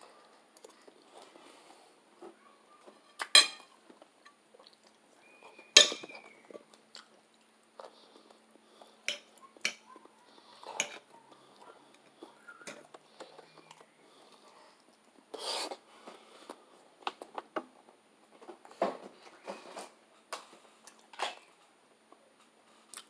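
Cutlery clinking and scraping on a plate during a meal: a dozen or so sharp, irregularly spaced clicks, the sharpest about three and six seconds in, with quiet chewing between them.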